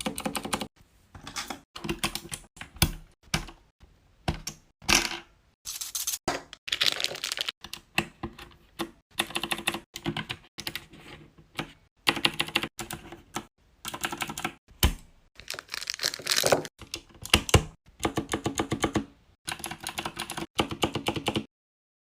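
Rapid clicking and tapping in quick runs with short pauses between them, stopping abruptly shortly before the end.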